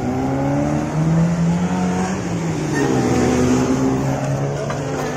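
Road traffic at a junction: vehicle engines running and pulling away, their pitch rising and falling as a motorcycle and a small truck pass close by, over a steady hiss of tyre and road noise.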